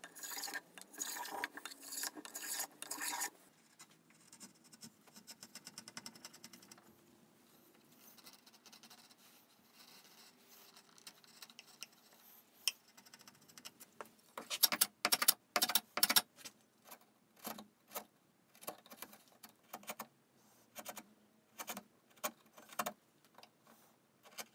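Chisel paring chamfers on oak edges by hand: short scraping strokes, in a quick run at the start and again about two-thirds of the way in, with a quiet stretch between and single strokes about once a second toward the end.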